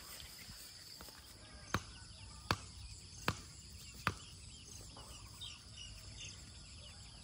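Four sharp knocks, evenly spaced a little under a second apart, over a steady high chirring of insects, with faint bird chirps in the second half.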